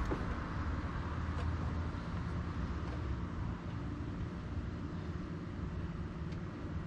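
Car engine running steadily at idle, a low, even hum with no revving.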